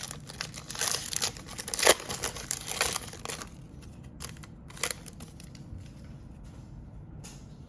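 Cellophane card-pack wrapper crinkling and tearing, with a sharp rip about two seconds in, then a few soft clicks from trading cards being handled.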